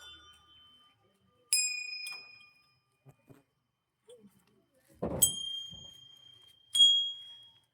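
Hanging temple bells struck by hand: three strikes, one about a second and a half in and two close together near the end, each ringing on and slowly fading. The first strike is a different bell, with another pitch, from the last two.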